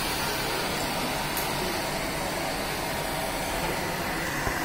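Steady hum and hiss of running factory machinery, with a faint sharp click about a second and a half in.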